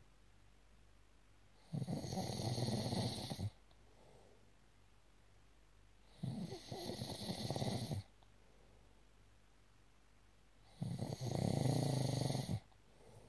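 Snoring: three loud snores about four and a half seconds apart, each lasting under two seconds, with quiet breathing gaps between.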